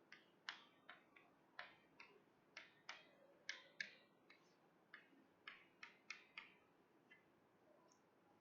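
Faint, irregular clicks and taps of a pen or marker drawing a symbol on a writing surface, about fifteen strokes over six seconds before stopping.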